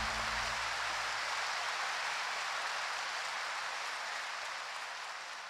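Concert audience applauding, the clapping fading out steadily; a low keyboard note dies away in the first half-second.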